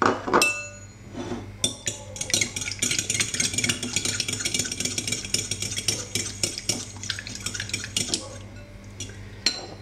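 A fork beating a raw egg in a glass bowl: a quick run of sharp ticks as the fork strikes the glass, lasting several seconds after a single glass clink near the start.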